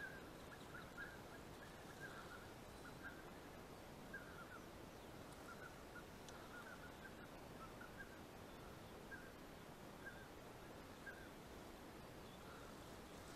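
Faint calls of a distant flock of wild geese circling: short, high yelps scattered every second or so over a quiet field.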